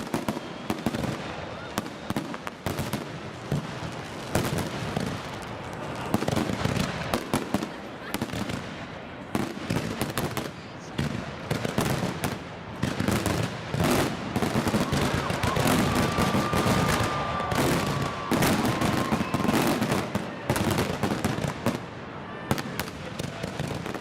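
Fireworks display: a dense, unbroken run of bangs and crackling shell bursts, many overlapping one another.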